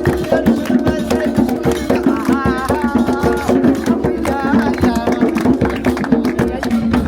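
Music with fast, dense hand-drum beats over steady low held tones, and a wavering melody line over the top.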